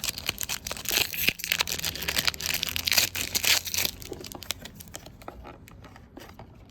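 Baseball card pack wrapper being torn open and crinkled: dense crackling for about four seconds, then thinning to light rustling.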